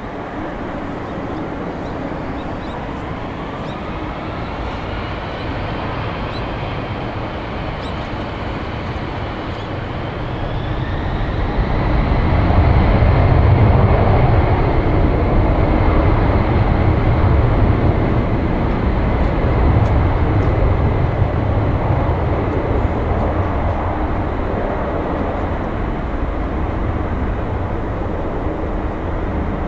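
A Boeing 767-200's twin Pratt & Whitney JT9D turbofans spool up to takeoff thrust, with a rising whine over the first several seconds. Then a loud, deep rumble swells about twelve seconds in as the takeoff roll gets under way, and it slowly fades as the jet rolls away down the runway.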